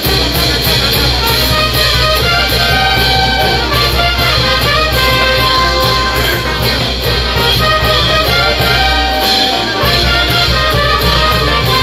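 A live brass band playing: trumpets, trombones and sousaphones over congas, drums and crash cymbals, with a steady beat.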